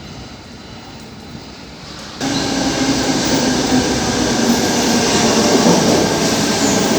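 Sydney Trains Tangara electric train running underground: a loud, steady rumble with a faint motor hum. It comes in abruptly about two seconds in, after a quieter stretch.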